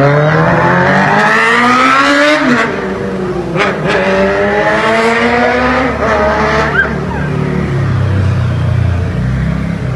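Sport motorcycle engine accelerating hard through the gears: its pitch climbs, drops at an upshift about two and a half seconds in and again about six seconds in, and climbs again each time, before the level eases near the end.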